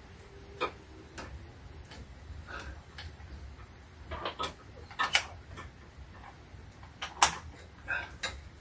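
Scattered metal clicks and knocks at irregular intervals, the loudest about seven seconds in, from a long tool bar levering the serpentine belt tensioner in an engine bay.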